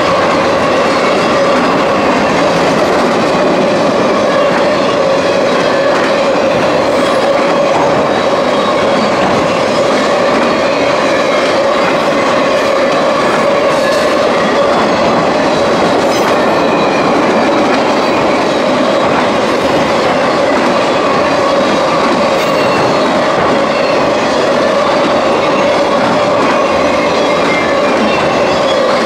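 Freight train of autorack cars rolling steadily past at close range, with a loud, even clatter of wheels on the rails. A steady high ringing tone runs through it.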